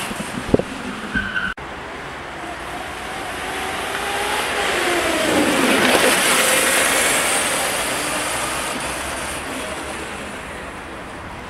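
Hydrogen fuel-cell electric racing kart passing close by: its electric drive whine and running noise swell, drop in pitch as it goes past about six seconds in, then fade away.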